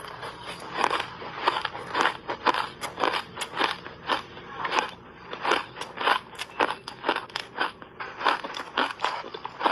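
Close-up crunching of a person biting and chewing refrozen shaved ice: a rapid, uneven run of sharp crunches, several a second.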